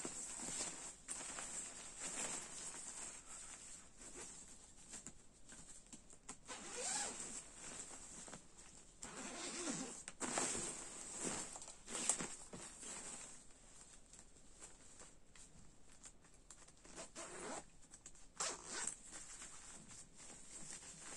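Two-way YKK zipper on a goose-down sleeping bag being run by hand in a series of irregular strokes, mixed with the rustle of its thin 20D polyester shell being handled.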